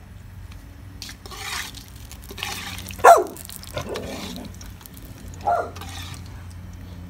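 Brown sugar caramelizing in hot oil in a large aluminum pot, hissing and sizzling in several bursts as a slotted metal spoon stirs and scrapes through it, with two short louder scrapes about three and five and a half seconds in. A steady low hum runs underneath.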